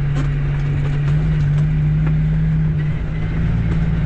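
Caterpillar C13 inline-six diesel in a Kenworth W900B dump truck, running under way and heard from inside the cab as a steady low drone. Its pitch steps down about three seconds in.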